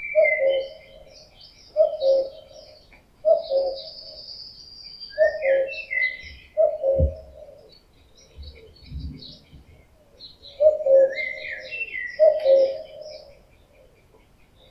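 A male common cuckoo calling its two-note "cuck-oo", the second note lower, repeated seven times at intervals of about one and a half to two seconds, with a pause of about three seconds before the last two calls. It is the male's territorial and mating-season call. Smaller songbirds chirp and twitter at a much higher pitch throughout.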